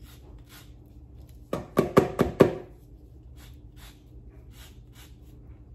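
Lemon rubbed against a handheld rasp zester, a faint scraping stroke about twice a second. About a second and a half in, a quick run of five sharp knocks.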